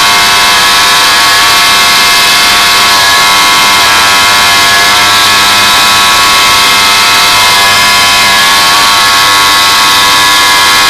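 Heavy road-paving machinery running steadily, with a loud, unchanging whine of several held tones.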